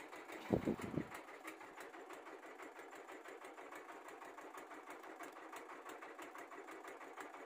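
Small boat engine running steadily at low speed, with a rapid, even pulse. There is a brief low thump near the start.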